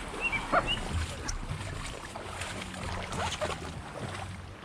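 Tall grass rustling and brushing against an inflatable kayak on a grassy bank, with scattered scuffs and a few short high squeaks near the start.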